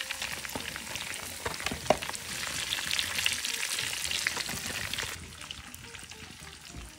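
Pork pieces sizzling and crackling in bubbling rendered pork fat in a pot, with light knocks of a wooden spoon as the cooked meat is lifted out into a perforated gourd scoop to drain. The sizzle eases after about five seconds.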